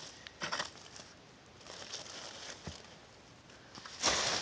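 Hand digging tool scraping and crunching through dirt and dump debris. A short scrape about half a second in, faint rustling after it, and a louder spell of scraping and crunching near the end.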